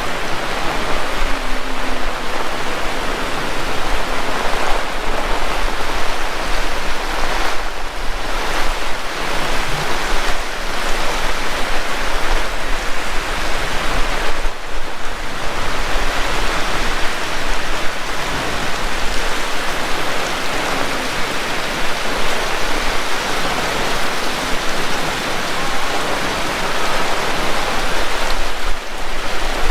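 Heavy rain pouring steadily, a dense loud hiss with brief lulls a few times.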